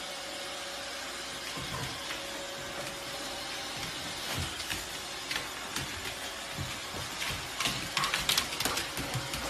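Robot vacuum running with a steady whir and hiss, while a puppy's paws thump and its claws click and scrabble on the hardwood floor, most sharply near the end.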